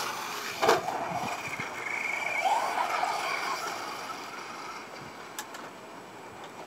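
Traxxas Slash electric RC truck's motor and drivetrain whining, the pitch rising and falling as it speeds up and slows, then fading as the truck moves away. A sharp knock comes about two-thirds of a second in.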